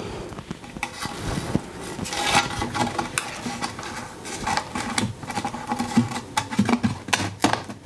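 Power drill with a step drill bit cutting through the wall of a battery enclosure, a running motor under an irregular crackling chatter as the bit widens the switch hole.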